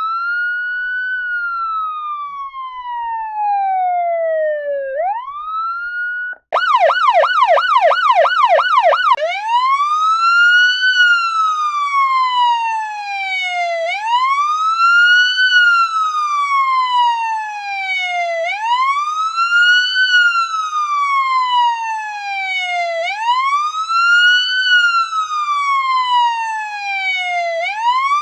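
Police siren sounding its wail: each cycle rises quickly and falls slowly, about every four and a half seconds. About six seconds in it drops out for an instant and switches to a fast yelp of about three sweeps a second for nearly three seconds, then goes back to the slow wail.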